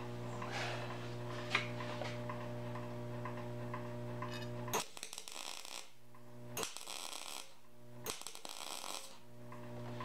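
A steady hum, then three short MIG tack welds of about a second each, each a crackling, sizzling arc. They are test tacks from a Lincoln SP250 with .023 wire on thin steel, run while raising the voltage to get flat, fully penetrated tacks.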